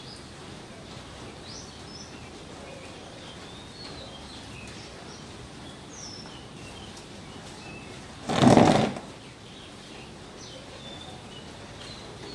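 Outdoor background with small birds chirping on and off. A little past the middle, a brief, loud rush of noise lasting under a second stands out above everything else.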